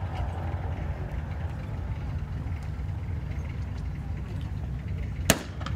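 A single M1 Garand rifle shot cracks out near the end, sharp and sudden over a steady low rumble.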